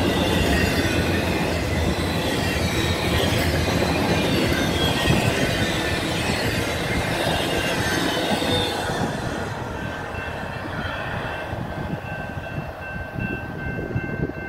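Intermodal freight cars rolling past close by: wheels running and rattling over the rails, with high-pitched wheel squeal. About nine seconds in the last cars go by and the noise falls away as the train moves off, leaving a thin, steady squeal.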